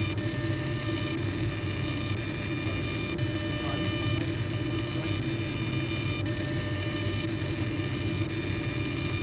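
Laser engraving machine running steadily while deep-engraving a metal gun barrel, the beam throwing sparks off the metal: an even hum and whir with a few steady high whining tones.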